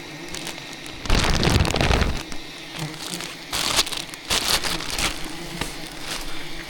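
Wild giant honeybees buzzing in a steady hum around the microphone, broken by several loud rustling, brushing bursts. The longest and loudest burst comes about a second in, with shorter ones around four and five seconds.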